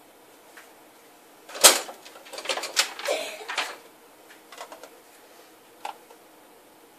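A sharp knock about one and a half seconds in, then a run of clicks and scrapes, and a few light taps near the end: a soap cutter and freshly cut bars of cold-process soap being handled on a work surface.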